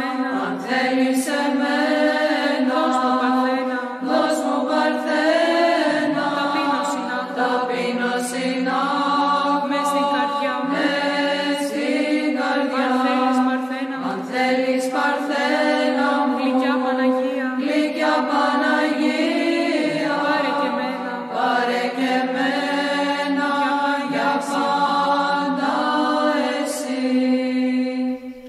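Orthodox church chant: voices sing a slowly moving melody over one steady held drone note, in the manner of Byzantine chant with an ison. It stops abruptly just before the end.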